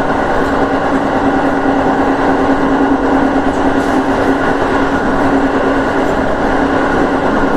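JR East 205 series electric train running at speed, heard from inside its driver's cab: a steady hum over the noise of the wheels on the track.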